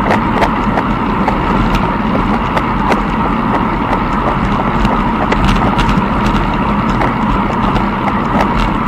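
Movement noise from a camera carried along a tow path during a race: a steady rumble with many irregular clicks and rattles.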